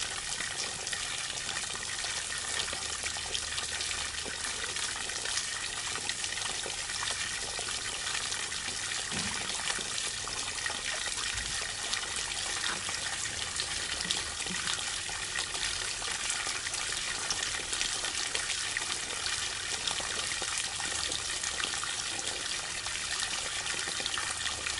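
Water gushing and splashing steadily as it streams through a clear acrylic flow-test box, pouring out of its outlet and spraying from leaking seams.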